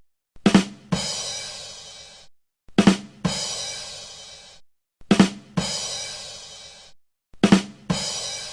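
'Ba dum tss' drum-kit sting: two quick drum hits followed by a cymbal crash that rings out and fades, the classic punchline rimshot. It repeats four times, about every two and a third seconds, with a brief silence between repeats.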